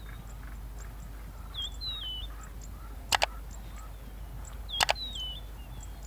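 Outdoor ambience with a bird singing a short whistled phrase twice over faint high ticking. The loudest sounds are three sharp double clicks about a second and a half apart, mouse-click sound effects from a subscribe-button animation.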